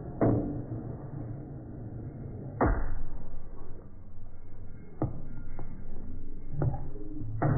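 Flames whooshing as a burning fire-performance prop is swung through the air: several sudden whooshes a second or two apart, over a steady low rumble.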